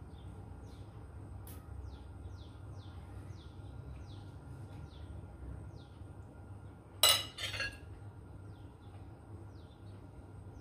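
A metal spoon clinks sharply against a dish about seven seconds in, with a smaller clink just after; this is the loudest sound here. Under it runs a steady low hum and a string of short, high chirps that fall in pitch, two or three a second.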